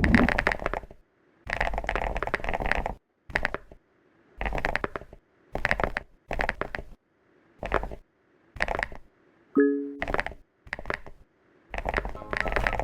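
A chocolate sound effect played again and again in short bursts of uneven length, with gaps between them. Music comes in near the end.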